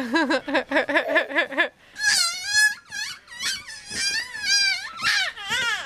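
Young children laughing and squealing with delight: a quick run of rhythmic giggles for the first second and a half, then high, wavering squeals.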